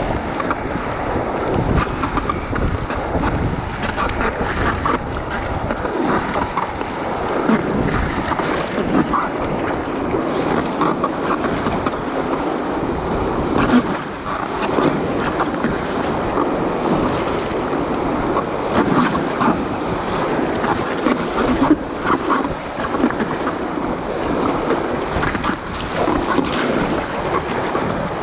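Whitewater rushing around an inflatable packraft running a river rapid, with splashes from paddle strokes and water slapping the boat. Wind buffets the microphone at the same time.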